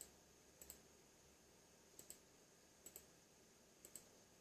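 Faint computer mouse clicks in quick pairs, about one pair a second, over near-silent room tone.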